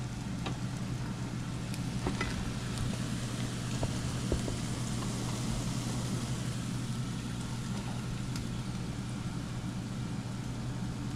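Catfish nuggets deep-frying in vegetable oil at about 350 °F in a Dutch oven: a steady sizzle over a constant low hum, with a few light clicks as a spoon works in the pot.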